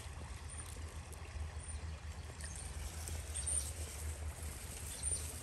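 Shallow creek water running and trickling over a gravel bed, an even wash with a steady low rumble beneath it.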